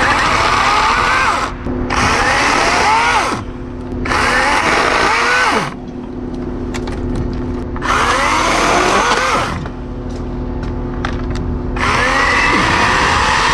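40-volt battery electric chainsaw (Wild Badger, 16-inch bar) cutting through tree limbs in five bursts of a second or two each, the motor pitch dipping under load and rising again as each cut finishes.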